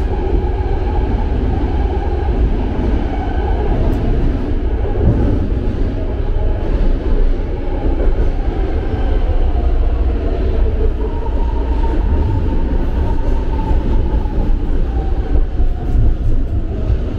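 BART train running along the track, heard from inside the car: a loud, steady rumble of wheels on rail, with a faint whine in the second half.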